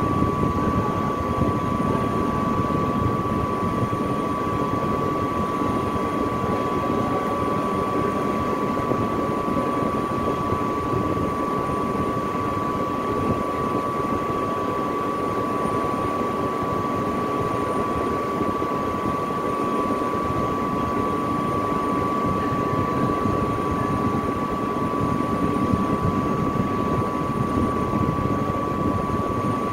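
Steady machinery noise: a constant drone with a high, unchanging whine.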